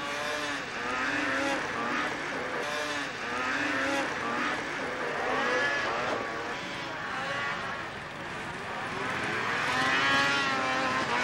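Racing snowmobile engines revving up and down over and over as the sleds run the course, several pitches rising and falling at once.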